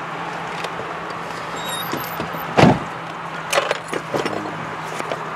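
Inside a stopped car: a steady low hum, with one loud thump about two and a half seconds in and a few light clicks and rattles after it.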